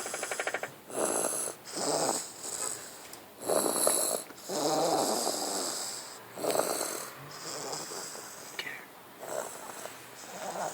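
Sleeping baby snoring, short noisy breaths in and out about once a second, some with a rattling, cat-like purr.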